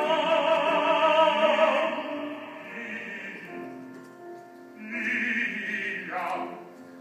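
A male opera singer sings a loud, sustained phrase with vibrato over piano accompaniment. The piano carries on alone for a few seconds, then a second short vocal phrase comes in near the end.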